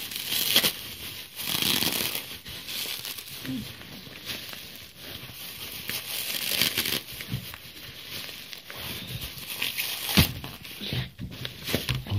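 Plastic bubble wrap crinkling and rustling as it is pulled off a laptop in irregular handfuls, with a single sharp knock about ten seconds in.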